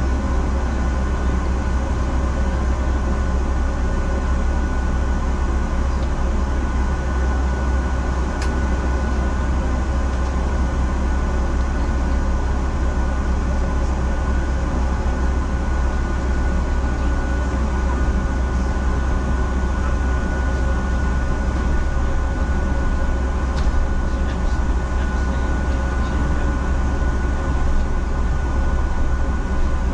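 Interior noise on the upper deck of a double-decker city bus: the engine's steady low rumble with a thin, constant whine above it.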